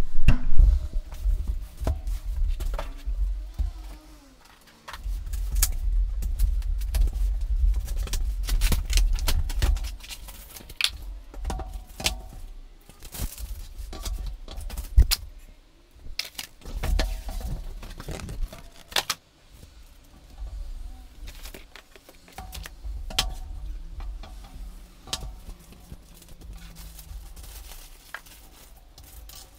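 Flat-pack cabinet parts being unpacked and handled on a wooden table: irregular knocks, thumps and clicks of cardboard and particleboard panels being moved and set down. Near the end come lighter clicks and rattles as a plastic bag of small metal fittings is handled.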